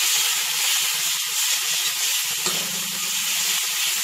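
Curry-leaf paste and turmeric sizzling in hot oil in a kadai as a metal spatula stirs it, a steady hiss with a few light scrapes and ticks of the spatula.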